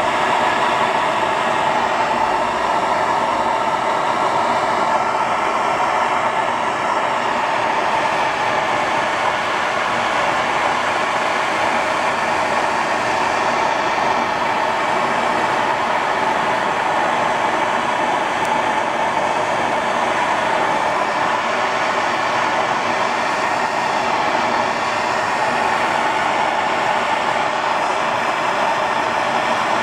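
MAP gas torch burning steadily with a constant rushing hiss, its flame played on the steel rear differential housing of a Toyota Tundra to burn out leftover oil and impurities before welding.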